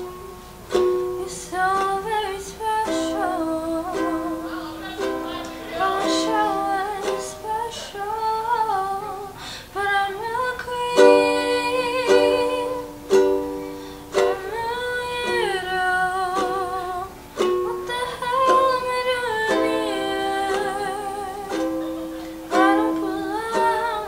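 A girl singing a slow song while strumming chords on a ukulele, some notes held with vibrato.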